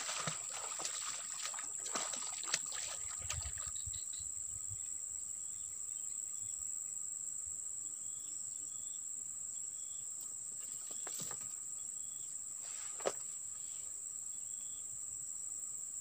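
Steady high-pitched drone of insects. A cluster of scratchy clicks in the first few seconds, with single sharp clicks about 2.5 and 13 seconds in.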